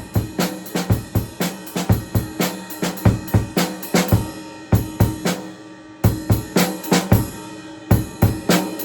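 Acoustic drum kit being played at a steady groove, with kick drum, snare and cymbals. A little past the middle the playing breaks off and the kit rings out for about a second, then the groove starts again.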